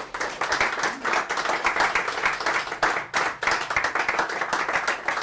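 Audience applauding: many people clapping densely and steadily at the close of a lecture.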